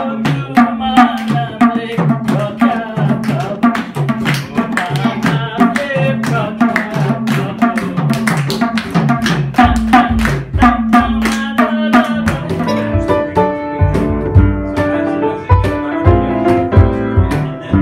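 Two-headed barrel hand drum played with both hands in a quick, dense rhythm. About twelve seconds in, the drumming gives way to piano chords with a deep bass.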